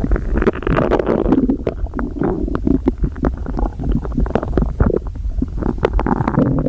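Human stomach growling: continuous gurgling broken by many quick pops and bubbling squelches, from a stomach full after overeating.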